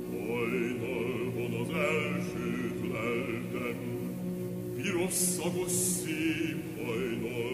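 Operatic voice singing in Hungarian with a wide vibrato over sustained orchestral chords, with two short hissing consonants about five seconds in.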